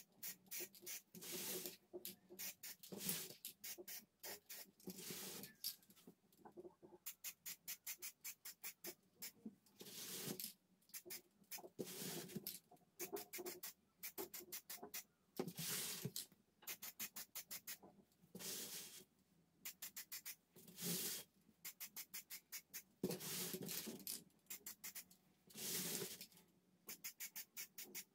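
Aerosol spray-paint can: short hissing bursts of spray, about half a second each, repeated many times, alternating with fast runs of rattling clicks from the mixing ball as the can is shaken.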